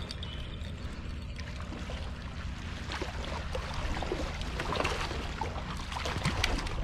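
A hooked searobin splashing at the water's surface as it is reeled in beside the rocks, with splashes coming thickest about four to six seconds in. A steady low rumble runs underneath.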